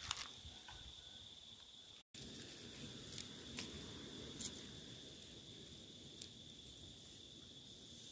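Faint, steady high-pitched insect chirring, like crickets, with a few soft taps and splashes as fish are washed by hand in a plastic basin of water. The sound drops out completely for a moment about two seconds in.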